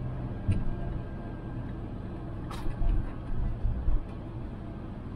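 Motorhome driving, heard from inside the cab: a steady low engine and road drone, with a sharp click about half a second in, another about two and a half seconds in, and a few low thumps just after.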